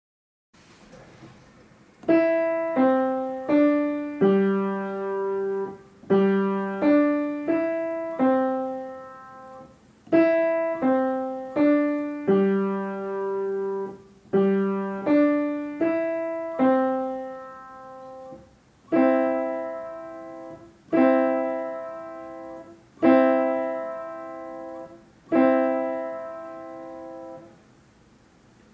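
Solo piano playing a slow melody in four phrases of four notes, each phrase ending on a long held note over a low bass note. Near the end come four single struck chords about two seconds apart, each left to ring and fade.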